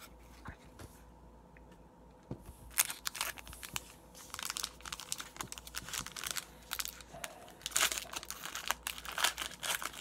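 Foil wrapper of a hockey card pack crinkling and tearing as it is handled and opened, a dense run of crackles starting about three seconds in after a few faint clicks.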